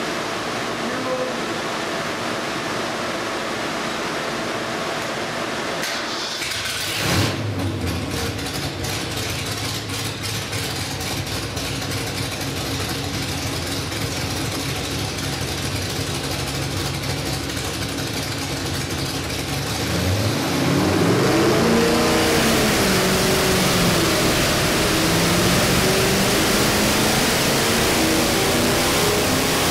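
434 cubic inch Ford FE stroker V8 crate engine running on an engine dyno. It runs steadily at first, with a brief louder burst about seven seconds in. From about twenty seconds in it gets louder as the revs rise, dip, then climb steadily under load in a dyno pull.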